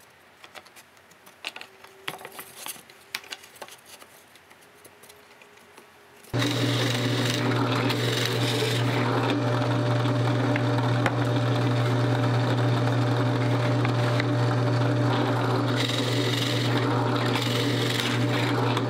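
A few faint knocks and rubs of a board being positioned, then about six seconds in a 12-inch Ryobi drill press comes in suddenly. Its motor runs with a steady low hum while the feed lever is pulled and the bit bores holes in the board.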